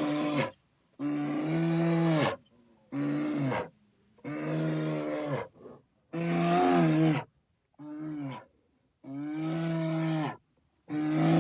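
A bear calling: a series of about eight drawn-out, steady-pitched roars, each roughly a second long, with short pauses between them.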